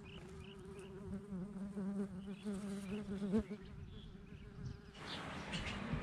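A honeybee buzzing in flight, a steady hum that wavers a little in pitch. It cuts off about five seconds in, giving way to busier background noise.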